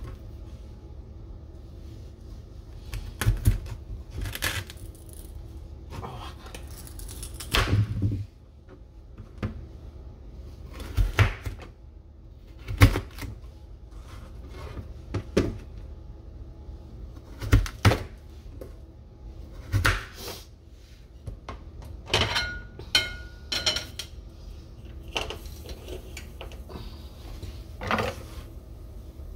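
Serrated kitchen knife slicing peeled raw potatoes on a plastic cutting board: irregular sharp knocks of the blade meeting the board every second or two, over a steady low hum.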